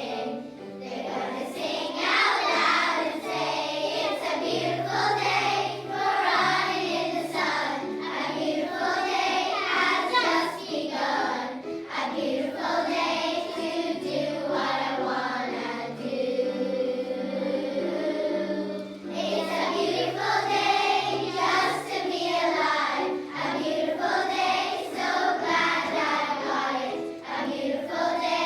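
A children's choir singing a song in unison over instrumental accompaniment with a slow-moving bass line.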